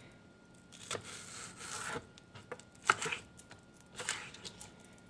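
Knife cutting green onions into strips on a wooden cutting board: a few separate slicing strokes and knocks about a second apart, the sharpest about three seconds in.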